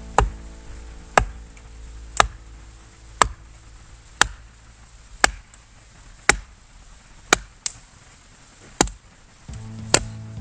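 Firewood being chopped: ten sharp blade strikes on wood at an even pace of about one a second.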